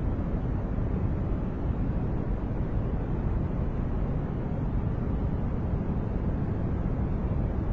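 Steady noise track sold as white noise, with no changes or events; the noise is deep, strongest in the low end and thinning out in the treble.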